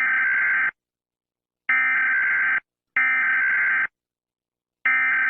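Emergency alert data header: four harsh buzzing bursts of about a second each, separated by short silences, the last one running on past the end. Each burst is made of two alternating high tones, like the coded data bursts that open an EAS alert.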